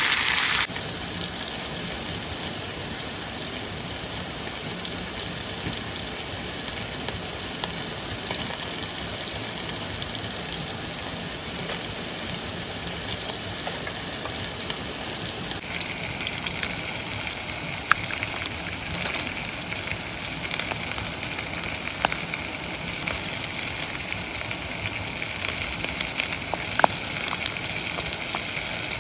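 Steady rush of a mountain stream or waterfall, with a few sharp clicks scattered through it. The sound turns brighter and hissier about halfway in.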